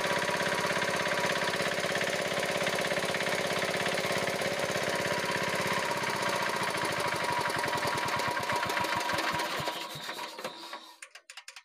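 Single-cylinder Chinese diesel engine, of the shallow-tube-well pump type, running steadily. It then slows, its firing strokes spreading further and further apart, and coasts to a stop near the end. It is running smoothly with its loose rocker-arm adjusting nut reset, and the earlier ugly knocking is gone.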